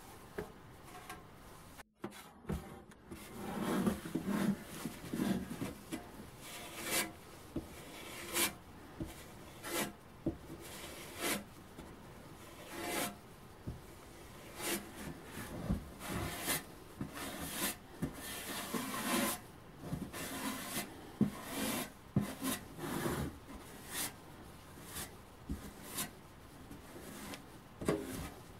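Small plastic spatula scraping putty across the sheet-metal walls of an ammunition box, in many short, irregular strokes.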